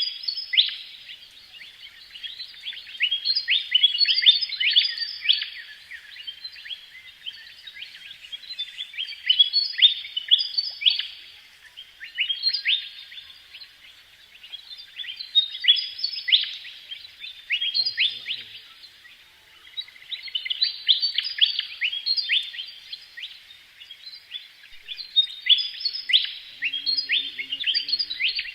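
Birds chirping in rapid, dense bouts that swell and fade every few seconds.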